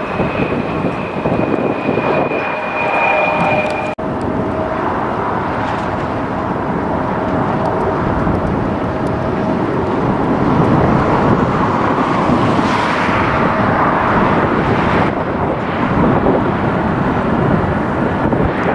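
Jet airliner engines with a dense rumble and a high steady whine that cuts off about four seconds in. The rumble then swells and carries on.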